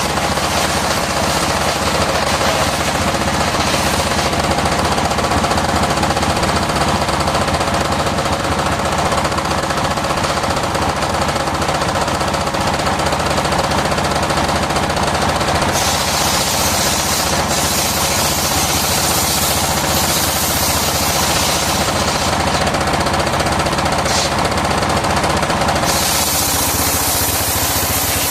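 Sawmill circular saw running steadily with its drive machinery, a loud continuous mechanical rattle and hum. A harsher, hissing layer comes in about halfway through, fades for a moment and returns near the end.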